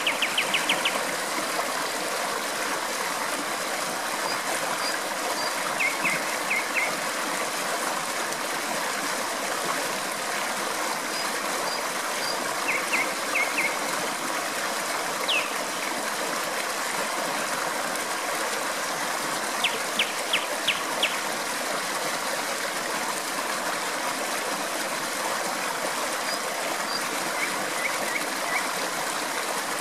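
Stream water flowing and trickling steadily, with a nightingale singing short phrases of quickly repeated high notes every several seconds over it.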